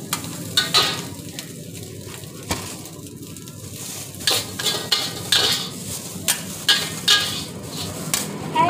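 A long-handled steel ladle and spatula scrape and toss rice in a steel wok over a steady frying sizzle. Metal scrapes and clanks come in quick strokes, with a quieter spell of mostly sizzle between about one and four seconds in.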